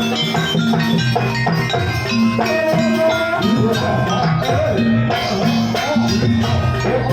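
Jaranan buto gamelan accompaniment playing: loud, dense ensemble music of pitched metal percussion over a repeating drum pattern, with one note held for about a second in the middle.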